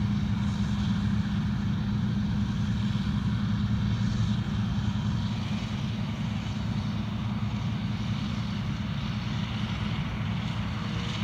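John Deere 9770 STS combine's diesel engine running steadily at working speed while harvesting soybeans on a sidehill, a deep, even drone that turns a little quieter after about five seconds.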